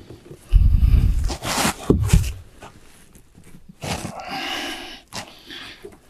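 Thin painted steel roofing panel being handled and pushed into place by hand: low rumbles and thuds of the sheet flexing, then knocks and a scraping rustle against the underlay membrane.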